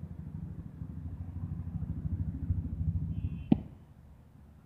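A wooden bat hitting a cricket ball once, a single sharp crack about three and a half seconds in, over a low fluttering rumble.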